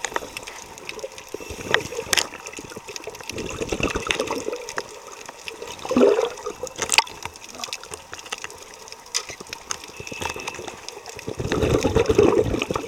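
Underwater: a scuba diver's exhaled bubbles gurgling past the camera in bursts, one about three to five seconds in, a short one at six seconds and a longer one near the end, with scattered sharp clicks between them.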